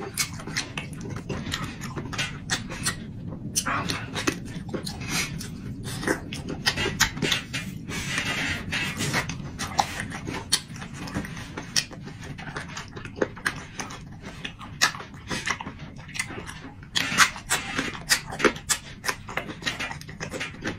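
Close-up chewing and lip-smacking, with many short wet mouth clicks, as a man eats slices of braised meat.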